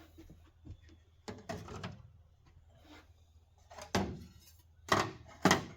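Workbench teardown noises: a short scrape or rattle, then sharp knocks as metal parts and tools are handled on the bench, two of them loud near the end.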